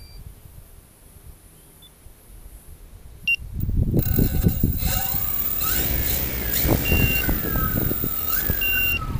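Multicopter's electric motors and propellers whining, their pitch sliding up and down as the motors change speed to hold position. Heavy wind buffets the microphone from about three and a half seconds in. A few short high beeps come through the noise.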